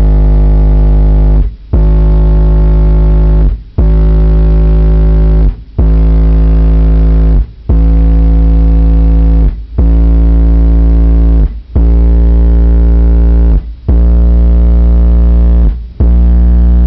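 12-inch Pioneer subwoofer playing a run of about nine steady bass test tones, each just under two seconds long with a short break between, stepped up through roughly 50 to 58 Hz. The tones are very loud and buzzy-distorted, and are heard inside the car while searching for the frequency where the cabin peaks, which the listeners place around 53–54 Hz.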